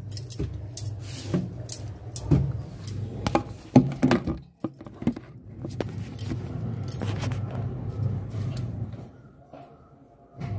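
Rustling, clicks and knocks of a handheld phone being moved about and set down, with some light jangling, over a steady low hum that drops away about a second before the end.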